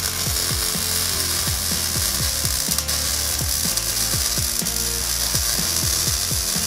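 Wire-feed (MIG) welder arc crackling steadily as it runs a bead on a steel tube bumper, with background music and a repeating falling bass figure underneath.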